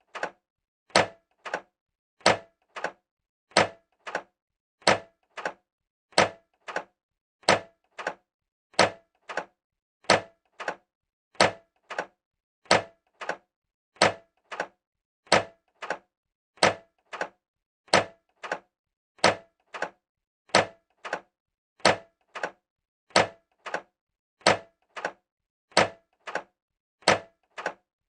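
Microwave oven door being popped open again and again: each time a sharp latch click followed by a softer click about a third of a second later, the pair repeating about every 1.3 seconds.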